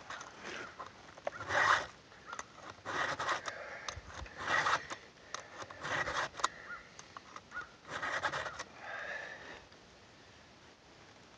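Round chainsaw file rasping across the cutter teeth of a Stihl MS 290 chain during sharpening, in short sets of strokes every second or two.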